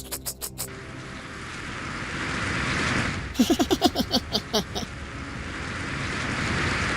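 Cartoon sound effects: a few quick clicks, then a steady rushing noise that grows louder. Near the middle it is cut by a rapid run of about eight short, squeaky calls, each falling in pitch.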